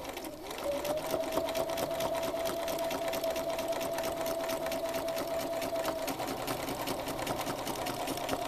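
Sewing machine running at speed while free-motion quilting, its needle making rapid, even strokes over a steady motor hum. The machine slows briefly at the start and picks back up about a second in.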